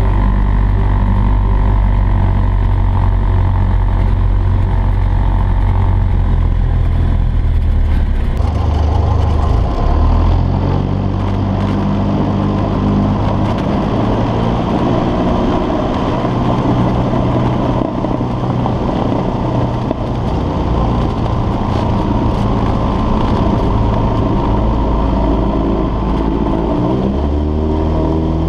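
Cessna 172's piston engine and propeller running, heard from inside the cockpit. The engine note changes abruptly about eight seconds in, and near the end it rises in pitch as the engine speeds up.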